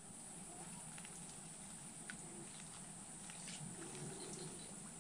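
Faint, quiet outdoor ambience: a steady high hiss with a few small, soft ticks about two and three and a half seconds in.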